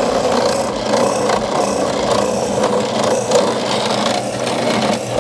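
Benchtop drill press running, its bit boring steadily down into a small block of wood and throwing out chips.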